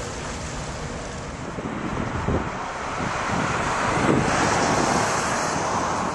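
Wind buffeting the microphone in strong gusts. The rush builds about two seconds in and stays loud through the rest.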